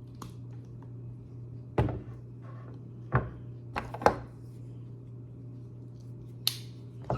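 Klein cutters snipping through a rubber washing-machine door gasket: about five short, sharp snaps spread over several seconds.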